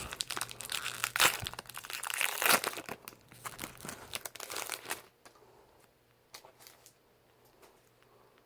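Yu-Gi-Oh booster pack wrapper being torn open and crinkled by hand: dense crackling that stops about five seconds in, followed by a few faint ticks.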